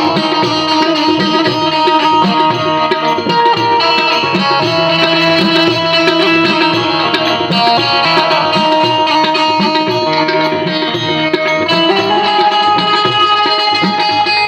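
Instrumental break in a devotional bhajan: an Indian banjo (bulbul tarang) plays a continuous melody over a steady tabla rhythm, with no singing.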